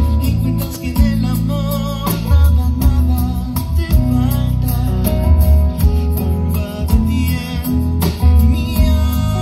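Live band playing: a male singer over electric guitar and drums, with a strong, steady low end.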